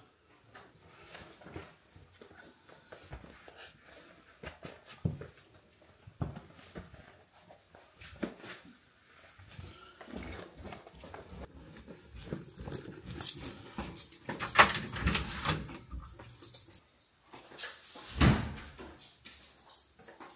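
Footsteps, clothing and backpack rustle as a person walks through a house and down carpeted stairs, with scattered knocks and a loud thump about 18 seconds in. A dog whines now and then.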